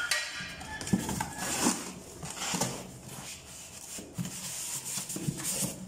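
Cardboard packaging and a styrofoam packing insert being handled and rubbed in a box, irregular scraping and rustling with a few short knocks.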